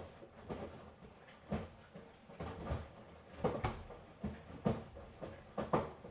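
Miele washing machine drum turning in a wash cycle, the wet laundry tumbling and dropping with soft, irregular thumps and swishes about one or two a second.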